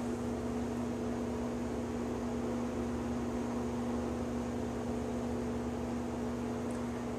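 Steady electrical hum with an even hiss underneath, unchanging throughout.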